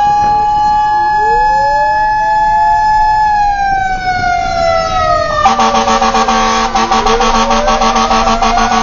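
Fire truck's electronic siren wailing in a slow rise and fall, heard from inside the cab, with a second siren tone sweeping down and back up twice. From about five and a half seconds in, a loud, rapidly pulsing horn tone sounds over it.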